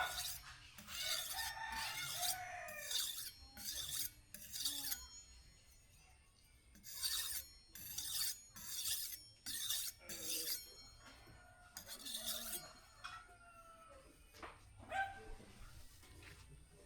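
Rhythmic scraping strokes of hand-working a steel blade, about one stroke every half-second in runs of several with pauses between. Chickens call and a rooster crows faintly in the background.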